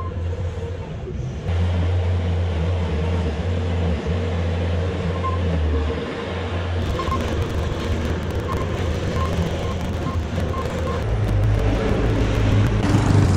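A motor running steadily with a low drone that steps up and down in level, with light clicking and rattling in the second half.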